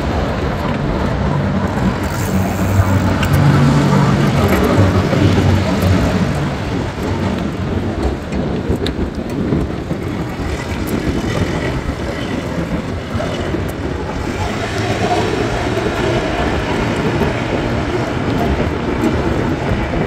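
Busy city street traffic: a steady mix of engines and tyres, with a louder low engine rumble passing a few seconds in.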